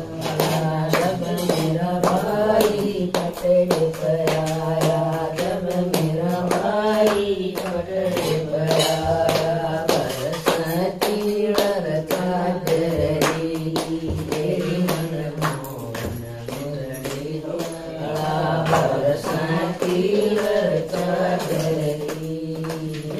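A group of women singing a Haryanvi bhajan, a devotional hymn, together, keeping time with steady rhythmic hand claps.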